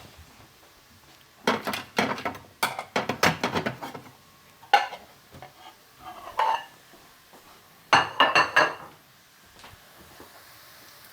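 Kitchenware clattering: several bursts of clinks and knocks from dishes, pans and utensils being handled and set down, a few with a short ring.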